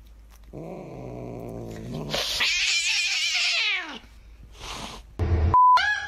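Tabby cat growling low, then letting out a loud, wavering yowl for about two seconds. Near the end a short censor bleep sounds.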